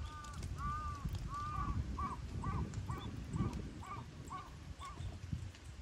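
A crow cawing over and over, about two caws a second, the later caws shorter and clipped before they stop near the end. Under it, the close, wet chewing and smacking of a cat eating from a bowl.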